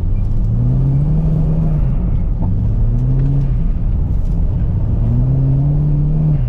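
Car engine revving hard in repeated throttle bursts while drifting on ice. Its pitch rises three times and drops back between each, over a steady low rumble.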